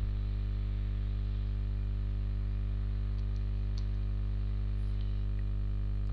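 Steady low electrical hum with several overtones, running evenly throughout, with a few faint clicks around the middle.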